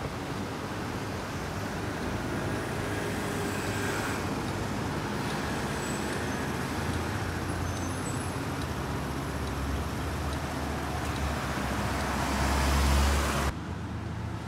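Road traffic at an intersection: cars driving past, with one vehicle's low engine and tyre sound growing louder as it passes close. The sound drops suddenly near the end to a quieter street hum.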